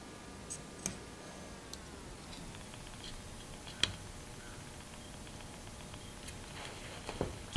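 Steel scriber scratching and ticking on wood as it marks the pins of a dovetail joint from the tails: a few faint, sharp ticks, the clearest about four seconds in, over low room noise.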